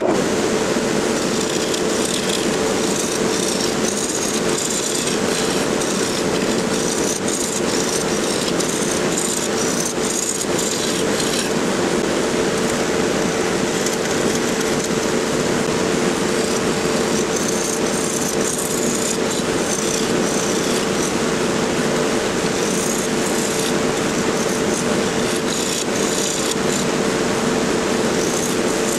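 Wood lathe running with a turning tool cutting a small pecan blank, roughing it round: a steady motor tone under the rough, scratchy hiss of the cut, starting abruptly and holding steady.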